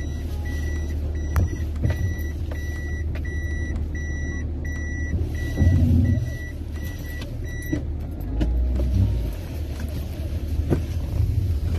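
A car's electronic warning chime beeping evenly, a bit over two short beeps a second, over the low hum of the running engine; the beeping stops about eight seconds in.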